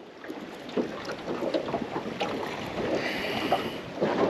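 Wind and water noise around a small aluminium boat, with scattered light knocks and a brief higher whirr about three seconds in.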